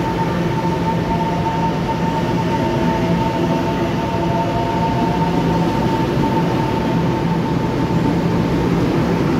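EMU700-series electric multiple unit pulling out of the platform at low speed: a steady rumble with a constant whine and a fainter tone that rises slowly in pitch as the train gathers speed.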